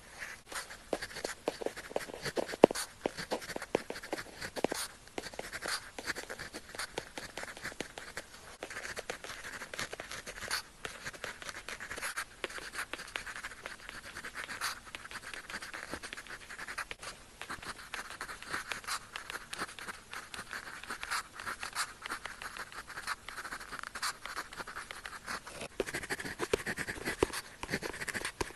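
Pen tip scratching across paper in continuous strokes of handwriting, with small taps as the nib lifts and lands.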